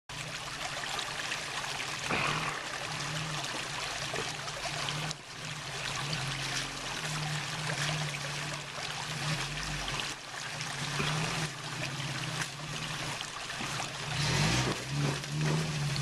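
Creek water running and trickling over rocks, with the low hum of a 1993 Toyota 4Runner's engine at crawling revs that swells and fades as the truck picks its way over the rocks.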